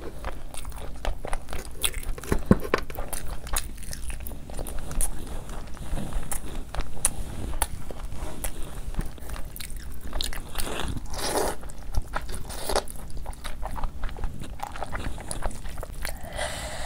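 Close-miked eating: a person chewing and biting food, with irregular wet clicks and mouth sounds, and a few louder, longer mouth noises about two-thirds of the way through and near the end.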